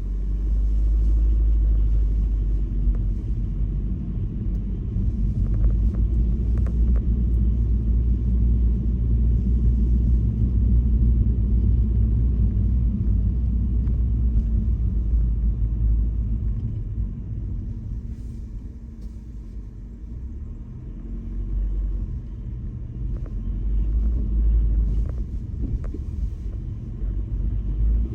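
Car driving on snowy streets: a steady low rumble of the road and engine. It eases off for a few seconds past the middle and then builds again.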